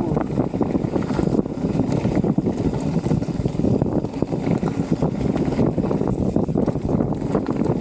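Wind noise on the microphone while a Transition Spire mountain bike rolls fast over a dirt trail, with constant small knocks and rattles from the tyres and bike over the bumps.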